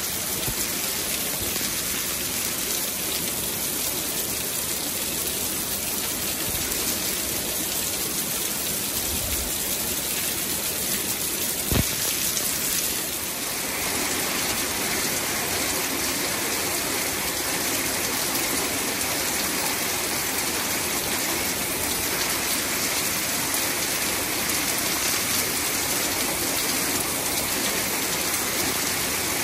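Heavy monsoon rain pouring steadily, a dense even hiss of drops striking concrete and tree leaves. A single sharp knock comes about twelve seconds in, and the hiss changes slightly in character after about fourteen seconds.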